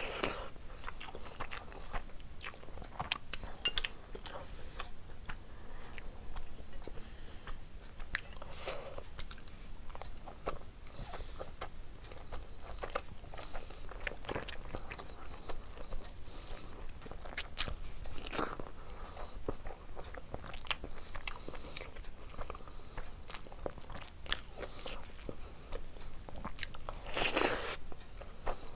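Close-up mouth sounds of eating rice, egg curry and prawns by hand: wet chewing and biting with many small smacking clicks, and a louder burst of chewing near the end.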